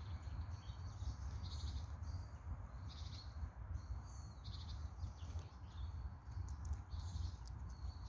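Tits giving short, high chirps and calls at scattered moments, over a steady low rumble.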